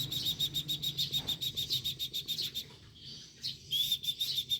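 A rapid, even run of short, high bird-like chirps, about eight a second, breaking off for about a second near the three-second mark, then resuming.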